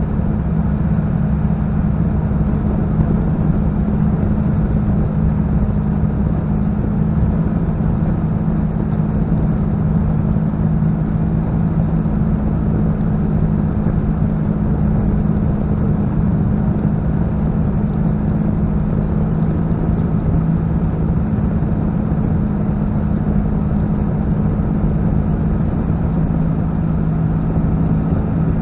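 Spitfire's Rolls-Royce Merlin V12 engine running steadily on the landing approach with flaps down, heard from inside the cockpit with rushing air over the airframe.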